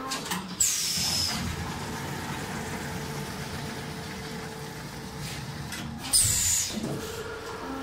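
Multi-needle quilting machine running with a steady hum, broken twice by a short, loud hiss of released air that falls in pitch: once just after the start and again about six seconds in.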